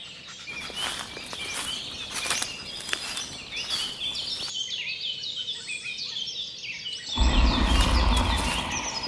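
Many birds chirping and singing together in a dense chorus of short calls, with scattered light clicks. About seven seconds in, a loud low rumble comes in suddenly and keeps going under the birdsong.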